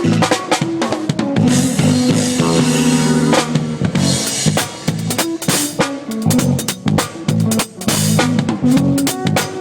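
A live band playing in a sound check, with the drum kit loudest: kick and snare hits over sustained low bass notes and other pitched instruments.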